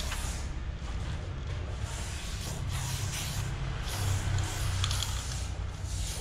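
Aerosol spray-paint can hissing in several spurts of varying length as orange outline strokes are sprayed onto a wall, over a steady low hum.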